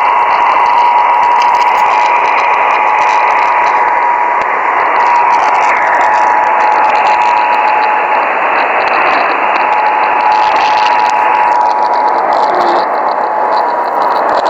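Emergency Alert System two-tone attention signal for a Required Monthly Test, received on an AM radio. A steady dual tone sits under heavy static hiss and drops out briefly about eight seconds in.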